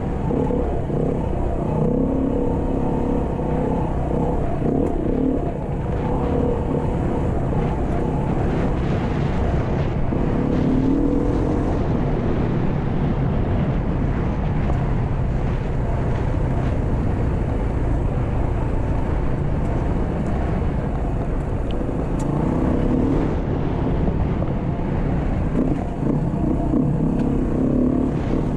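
Beta RS 500 single-cylinder four-stroke dirt bike engine running under way on a trail, its revs rising and falling a few times with the throttle, over a steady low rumble.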